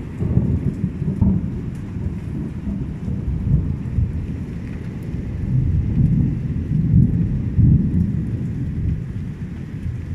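Rain falling during a thunderstorm, with a continuous low rolling rumble of thunder that swells near the start and again around six to eight seconds in.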